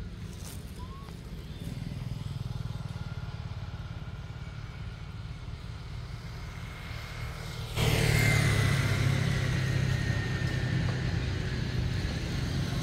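A steady low engine hum, like a motorbike running. About eight seconds in it turns suddenly louder, with an added hiss.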